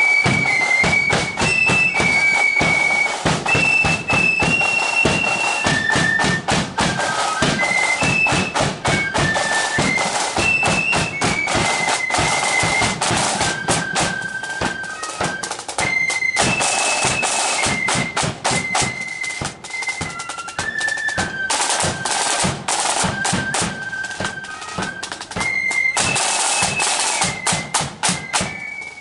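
Marching flute band playing a tune: flutes carry a high melody over rapid side-drum beats and a bass drum. The drums break into short loud rolls a few times in the second half.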